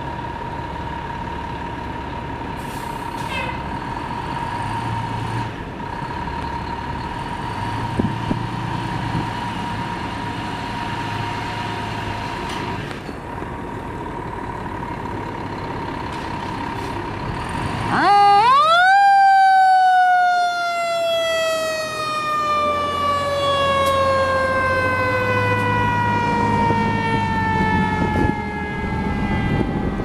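Fire pumper's engine running under a steady high tone. About eighteen seconds in, its siren winds up sharply to full pitch and then slowly winds down, falling in pitch, in the single wind-up and coast-down of a mechanical siren.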